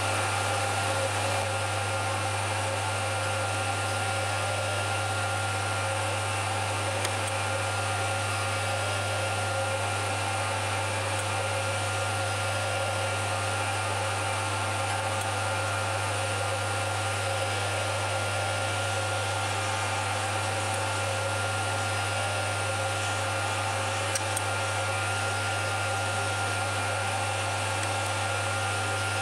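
Schaublin 102 lathe running steadily, spinning a wheel cutter that cuts teeth in a brass clock wheel: an even motor hum with a steady higher whine and a couple of faint ticks.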